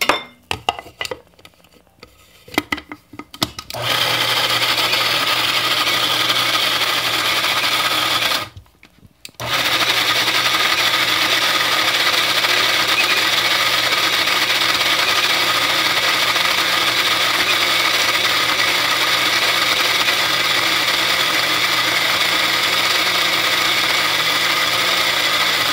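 Small electric blade grinder grinding sesame seeds with olive oil into tahini. A few clicks and knocks of handling first, then about four seconds in the motor starts and runs steadily, stops for about a second, and runs again for the rest.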